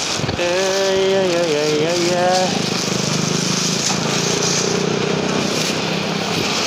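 Street traffic noise with a vehicle engine running steadily. A drawn-out, wavering voice is heard over it for the first two seconds or so.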